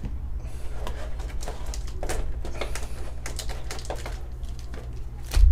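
Clear plastic packaging of a Pokémon TCG collection box crackling and clicking as booster packs in foil wrappers are pulled out of it, over a steady low hum. A sudden low thump comes right at the end.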